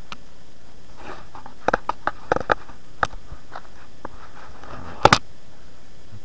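Footsteps crunching on dry leaf litter and twigs: a few irregular crackles and snaps, the sharpest about five seconds in.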